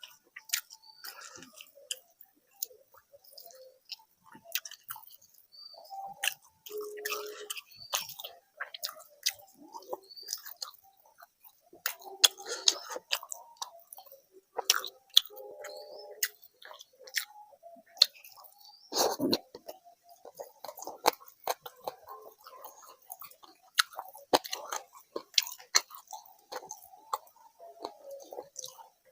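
Close-miked chewing and wet mouth sounds of someone eating a rice and curry meal, with scattered clicks and smacks and a louder smack about nineteen seconds in.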